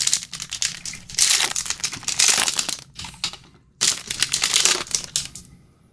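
Trading card pack wrapper crinkling and tearing as it is opened, in several crackly bursts.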